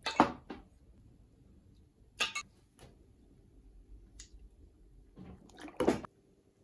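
Metal lawnmower engine parts, a piston on its connecting rod among them, knocking and clinking against each other and the plastic tub as they are handled in soapy water. A few separate short knocks with quiet between them, the loudest near the end.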